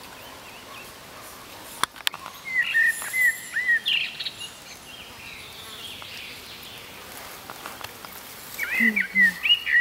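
Birds chirping: short, quick chirps in a cluster about two and a half seconds in and another near the end, with a couple of sharp clicks about two seconds in.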